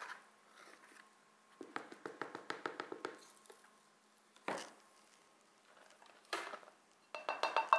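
Measuring cup scooping powdered sugar from a plastic container and tipping it into a glass mixing bowl: a quick run of small taps and scrapes, then two single soft knocks and a few more taps near the end.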